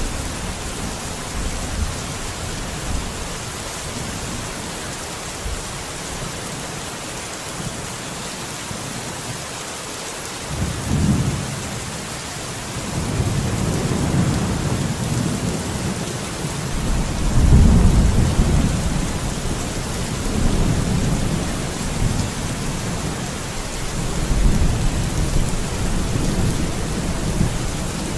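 Steady rain falling, with rolling thunder rumbling in about a third of the way through, swelling to its loudest a little past the middle and rumbling again near the end.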